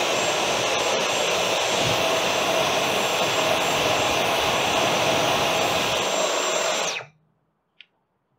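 Dyson V12 Detect Slim cordless vacuum cleaner running steadily over the laptop's cooling fans, a steady rush of air with a thin high-pitched whine; it switches off suddenly about seven seconds in.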